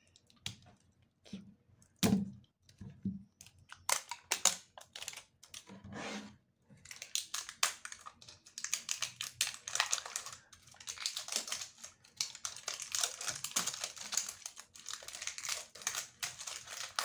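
Plastic tear-strip 'zipper' being pulled off a LOL Surprise Confetti Pop ball, with its wrapping crinkling: a few scattered clicks at first, then from about seven seconds in a dense, continuous crackle.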